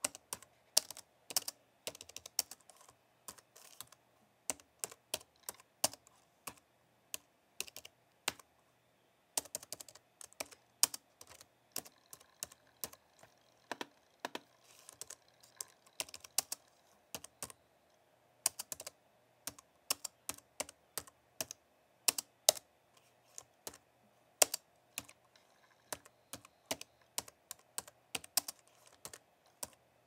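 Typing on a slim, low-profile computer keyboard: quick, irregular runs of soft key clicks, broken by short pauses.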